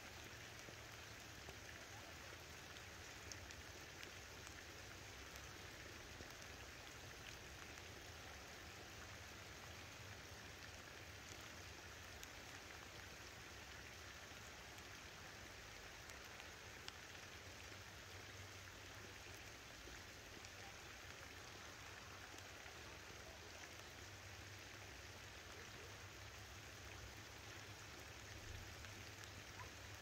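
Steady, light pattering rain, with faint ticks of single drops here and there.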